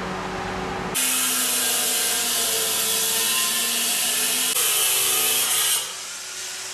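Handheld angle grinder running. About a second in it bites into the edge of a sintered stone slab and grinds it with a loud, steady rasp for almost five seconds, then lifts off and runs free more quietly near the end.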